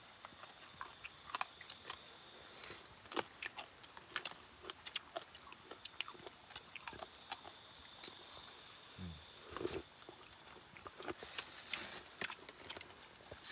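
Someone eating: chewing, with a spoon clicking and scraping in a metal pot, in scattered irregular small clicks.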